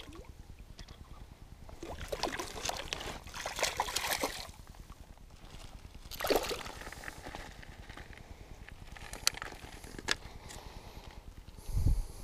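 Hooked perch splashing in shallow water at the shore as it is played in and lifted out by hand, with water sloshing in two bursts. A few sharp clicks follow, then a dull knock near the end.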